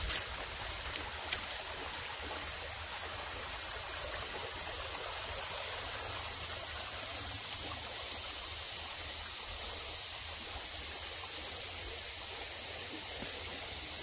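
Shallow rain-fed stream flowing over rocks and fallen logs in a gully: a steady rushing trickle of water, with a steady high-pitched whine above it.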